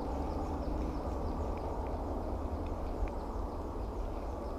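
Steady outdoor background noise with a low rumble, and a few faint short ticks or chirps above it. One tick about three seconds in is a little louder than the rest.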